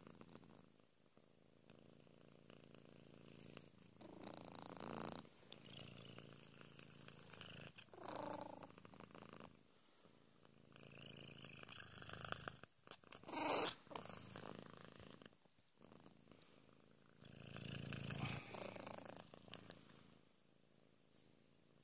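Flat-faced Persian-type cat with chronic feline rhinotracheitis (herpesvirus) during a congestion crisis: a low, steady, purr-like rumble of breathing through a blocked nose. Several louder short hiccup-like catches break into it, the loudest and sharpest about halfway through. These hiccup-like spasms are what signal that sneezing and nasal discharge are about to start.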